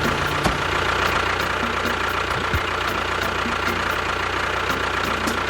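An engine running steadily at idle: an even low hum with a constant thin whine above it.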